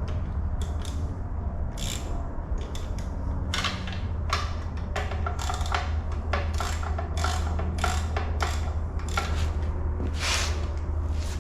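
Hand socket ratchet with a hex bit clicking in short, irregular runs as Allen-head screws are driven, over a steady low hum.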